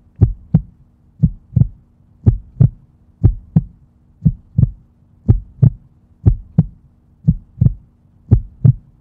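Pulse sounds as heard through a stethoscope, standing for the Korotkoff sounds during slow cuff deflation: pairs of dull thumps about once a second over a faint steady hum. They cut off suddenly at the very end, the point taken as the diastolic blood pressure.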